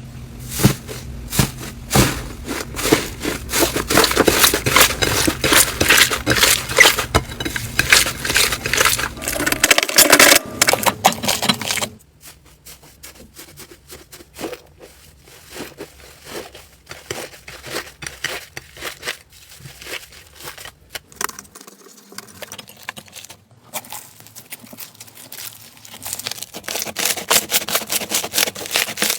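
Slime being squeezed and pressed by hand, making a dense run of small crackles and clicks. About twelve seconds in it drops suddenly to a much quieter stretch of scattered clicks, growing louder again near the end.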